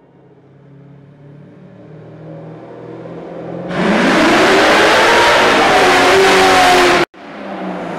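Ford Mustang accelerating through a concrete tunnel toward the listener: the engine note swells, then goes to hard throttle about four seconds in, loud, with its pitch rising. The sound cuts off abruptly about a second before the end, and a quieter engine sound follows.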